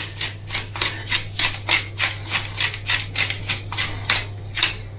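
Wooden pepper mill grinding black peppercorns, a gritty rasp with each twist of the head, about four twists a second without a break.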